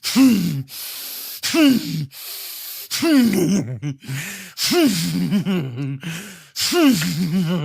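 A man's exaggerated comic sneeze fit: about five sharp gasping breaths, each followed by a loud voiced cry that falls in pitch. The cries grow longer and more wavering toward the end.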